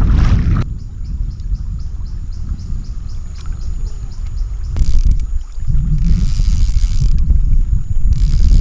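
Outdoor riverside ambience: wind rumbling on the microphone in gusts, with a thin, high, steady chirping pulsing about four times a second behind it.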